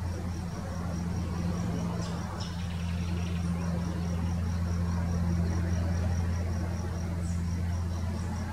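A cricket-like insect chirping in a rapid, even, high-pitched series, over a steady low hum.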